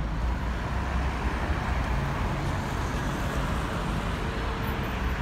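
Steady city street traffic noise: passing cars and engines make a continuous low rumble.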